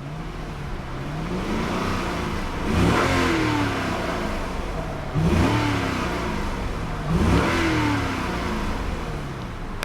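2002 Lexus LS430's 4.3-litre V8 revved three times and settling back toward idle between revs: a slow climb peaking about three seconds in, then two quicker blips about two seconds apart. A relatively quiet engine that is mainly heard at the higher revs.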